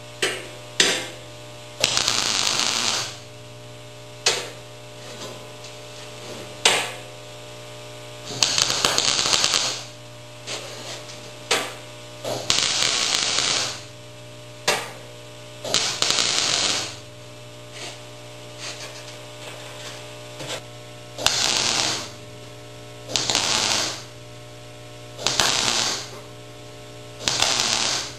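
MIG welder laying a run of short spot welds on a sheet-steel patch: about a dozen separate bursts of arc crackle, from brief blips to about a second long, with short pauses between. The welds are kept short to stop the metal from warping. A steady electrical hum runs under them.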